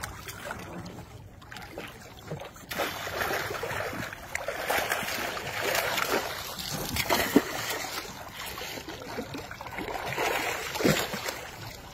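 Catfish thrashing at the water's surface, splashing irregularly as a landing net scoops through them, growing louder and busier about three seconds in.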